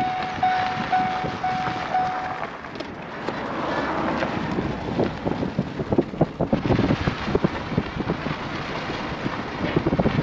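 Pickup truck driving slowly over a rough farm yard, heard from inside the cab: a steady rumble with irregular knocks and rattles, and wind on the microphone. In the first couple of seconds a beeping tone sounds about twice a second and then stops.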